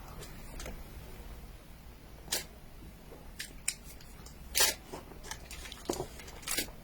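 Eating sticky mochi cake: about six scattered wet clicks and smacks of chewing, the loudest a little past halfway.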